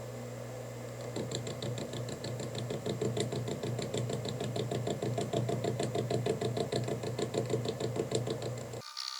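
Metal lathe running with its motor humming, then from about a second in the cutting tool starts an interrupted cut on the corners of a square stainless steel blank, giving a fast, even rhythmic knocking. It cuts off abruptly near the end.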